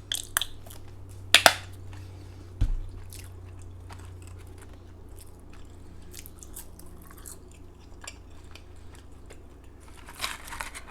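Close-miked chewing of McDonald's fast food, wet mouth clicks and crunching, with a brief louder crackle about a second and a half in, a dull thump a second later, and another crackly spell near the end.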